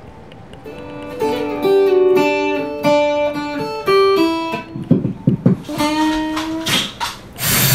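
Acoustic guitar played note by note: a short melodic run of single plucked notes begins about a second in, with a few low knocks partway through. A loud rushing noise cuts in just before the end.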